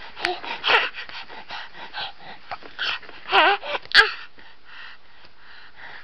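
Baby's excited screams and squeals in short, breathy bursts, with a wavering, pitched squeal about three and a half seconds in.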